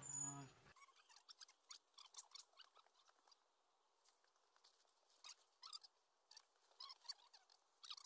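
Near silence with faint, irregular clicks and light rustling throughout, after a brief fragment of a voice at the very start.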